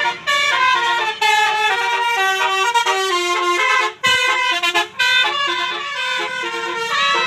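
Telolet bus horn, a multi-tone air horn, playing a quick melody of stepping notes, with a brief break about four seconds in.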